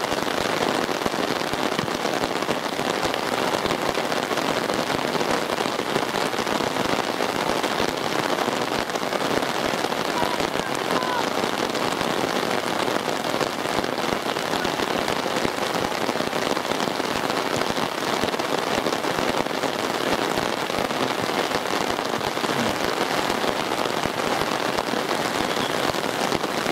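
Steady rain falling, an even, dense hiss that does not let up.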